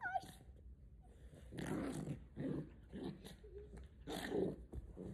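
Small dog play-growling and huffing in several short bursts during rough play, the strongest about two seconds in and again near four seconds.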